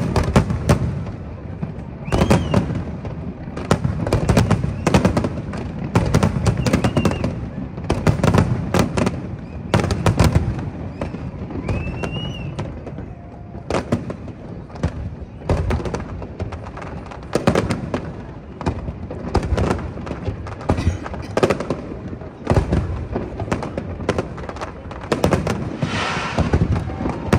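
Aerial fireworks show: many shells bursting in quick succession, booms and bangs often less than a second apart.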